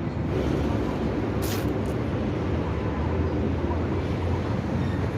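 Steady low rumble of city street traffic, with a brief hiss about a second and a half in.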